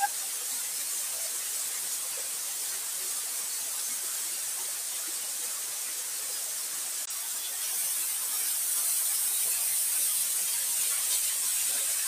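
Small waterfall splashing down a rock face: a steady hiss of falling water, a little louder after a brief click about seven seconds in.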